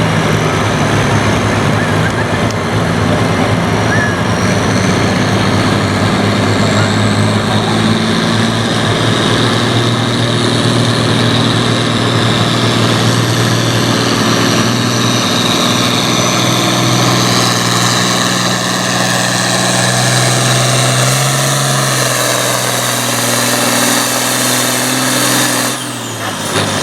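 Farm-class pulling tractor's engine running hard at full throttle under load during a pull, a loud steady drone whose level dips briefly near the end.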